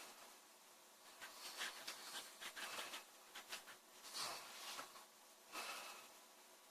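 A sleeping woman snoring faintly, a string of short airy breaths followed by two stronger snores about four and five and a half seconds in.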